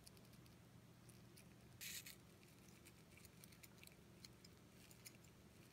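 Near silence: faint room hum, with one brief soft rustle about two seconds in.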